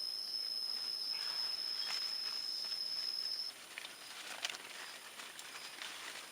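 A steady, high-pitched insect whine that cuts off about three and a half seconds in, followed by scattered light clicks and rustles.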